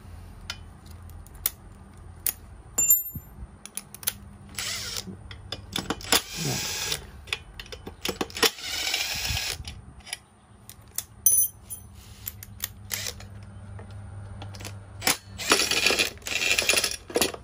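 Metal hand tools clinking and scraping on a 43cc two-stroke brush cutter engine as the muffler bolts are unscrewed and the muffler is lifted off: many sharp clicks, a few high ringing metallic pings, and several longer rasping scrapes.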